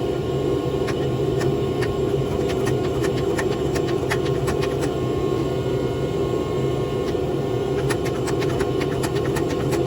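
Steady roar of forge-shop equipment running, with a low hum under it and scattered light clicks and ticks.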